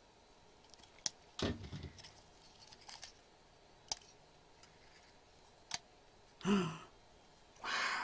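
Small sharp clicks now and then as a metal Walz Coronet B pocket light meter is handled. Its hinged front cover is opened, with two louder short rustling bursts in the last two seconds.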